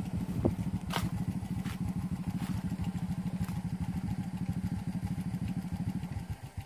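Motorcycle engine idling with a steady, rapid, even beat, close by. A knock comes about half a second in and a sharp click about a second in. Near the end the beat turns quieter and slower.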